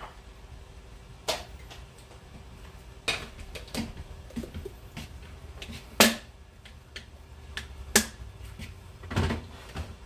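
Glass food-storage containers being handled and set down on refrigerator shelves: a handful of sharp clinks and knocks, the loudest about six seconds in, with a scuffling shuffle near the end.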